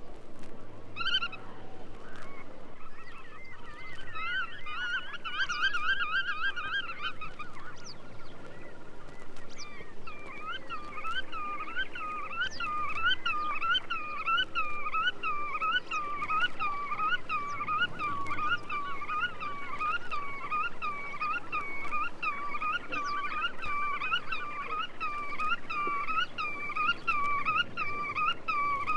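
Black-tailed godwit calling: a single call, then a quick trilled phrase, then a long run of rising-and-falling call notes at about one and a half a second.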